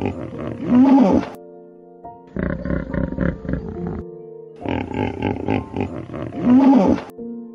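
Deep, rough animal roars in three bouts of one to two seconds, about a second apart, over background music with steady held notes.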